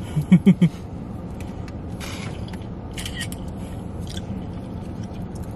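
Eating sounds from handling a styrofoam takeout clamshell and chopsticks: creaks, rustles and small clicks. Near the start there are four quick low pulses of a person's hummed voice, the loudest sound.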